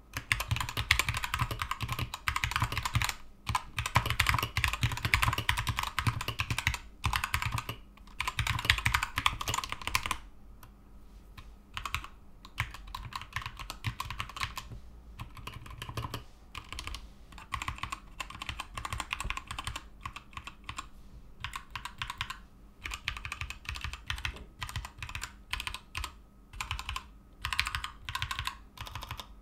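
Typing on a Keychron K2 mechanical keyboard with Gateron Red linear switches. For about the first ten seconds the keystrokes come fast and close together; after that they are slower and more spread out.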